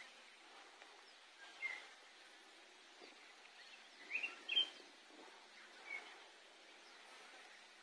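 Faint open-field ambience with a handful of short bird chirps, the loudest pair a little past the middle.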